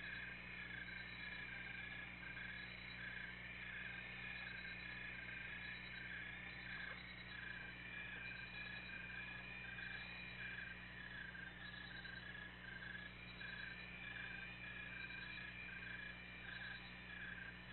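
Night chorus of small animals chirping in a steady, even rhythm, over a faint steady low hum.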